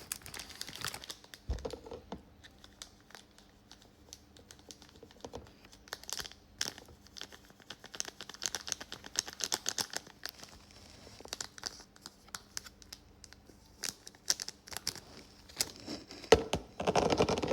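Plastic packaging crinkling and tearing as it is handled, in irregular sharp crackles that come thicker in the middle and loudest near the end.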